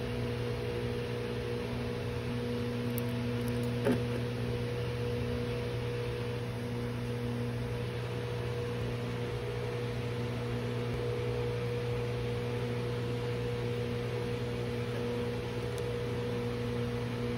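A steady hum with a constant hiss underneath, and one brief click about four seconds in.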